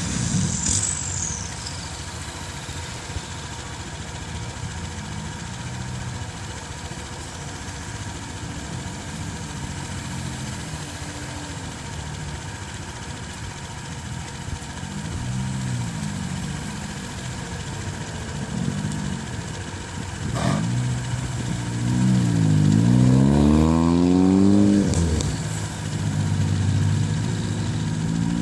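Small hatchback car engines idling and being blipped as the cars pull out. There are a few short revs, then about two thirds of the way through one engine revs up hard and falls back, the loudest moment.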